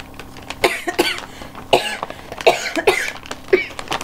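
A woman coughing repeatedly, about six short, loud coughs spread over a few seconds.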